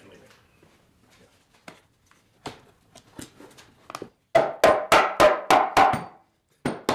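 Faint handling clicks of a plywood bending form, then about eight quick, loud wooden knocks in under two seconds as the inner form is worked loose from a glued bent-wood lamination.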